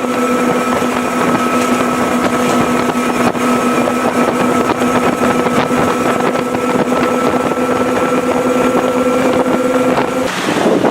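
Twin Mercury 400R racing outboards (supercharged six-cylinders) running at a steady high pitch at speed on a pontoon boat, under a loud rush of wind on the microphone and water. The engine note drops out near the end, leaving wind and water.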